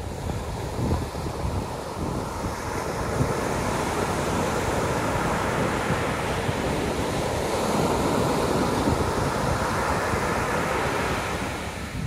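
Pacific Ocean surf breaking and washing up a sandy beach: a steady rush that builds through the middle and eases near the end. Wind buffets the microphone underneath.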